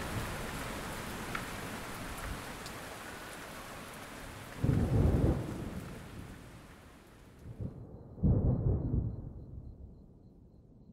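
Steady rain falling, with two rolls of thunder about five and eight seconds in; the rain fades away near the end.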